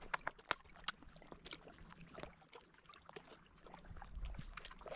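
Quiet eating sounds: scattered faint clicks and taps at an irregular pace, as of hands, food and dishes during a meal.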